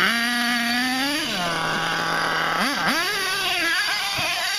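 HPI Savage X 4.6 RC truck's small nitro two-stroke engine running at high revs, dropping to a steady idle about a second in, then revved up twice in quick blips before settling back down near the end.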